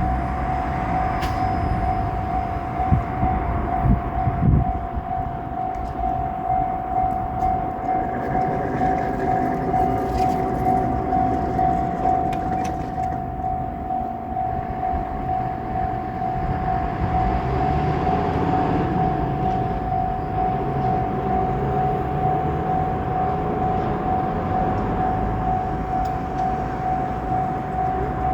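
Japanese level-crossing alarm ringing its steady, repeating electronic bell tone. A continuous low rumble and drone sit beneath it, with a few sharp thumps about three to four and a half seconds in.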